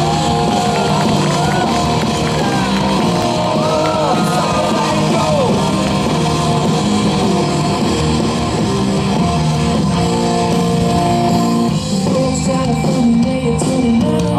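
Rock music with a singing voice and guitar, playing steadily at full level.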